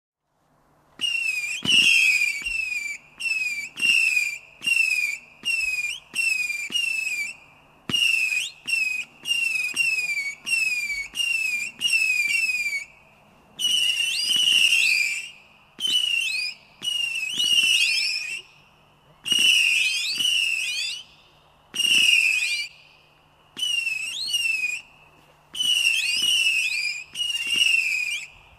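Lesli "Worms" 100-shot, 8 mm fireworks cake firing: a long run of whistling shots, each a short wavering, mostly falling whistle, about one a second with brief gaps between them, starting about a second in.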